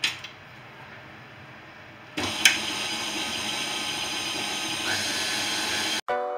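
Tilt-head stand mixer: a short clunk as its head is lowered at the start, then about two seconds in the motor switches on and runs steadily, the dough hook turning through flour and milk to start kneading bread dough.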